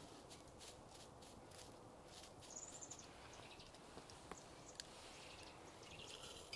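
Faint dry crackling of loose-leaf black tea rubbed between fingers in the palm, followed by a few light ticks. A single bird chirp sounds about two and a half seconds in.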